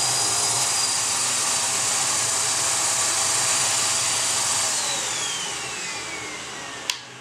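Vacuum cleaner motor of a homemade record-cleaning machine running with a steady rushing whine of suction. About five seconds in it is switched off, and the whine falls as the motor spins down. A sharp click comes near the end.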